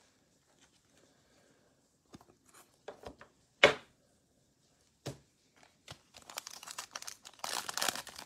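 A few sharp plastic clicks as a trading card is slid into a clear top loader. Then, from about six seconds in, a foil trading-card pack wrapper crinkling and tearing open, loudest near the end.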